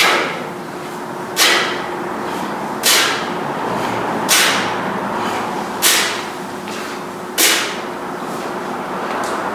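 A set of six single-arm kettlebell swings, with a sharp hiss at each rep about one and a half seconds apart. Each hiss starts suddenly and fades within half a second.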